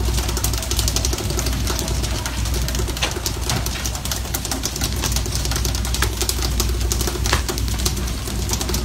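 Fishing boat's engine running with a steady low drone, under a rush of water along the hull and a scatter of sharp clicks and knocks on deck.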